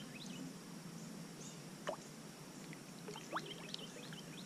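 Faint water drips and plops off a canoe paddle during paddling, many small drops with two louder plops about two and three and a half seconds in.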